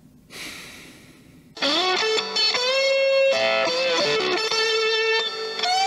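Electric guitar played through a Vox amplifier: about a second and a half in, a lead line starts of held notes with string bends gliding up into pitch.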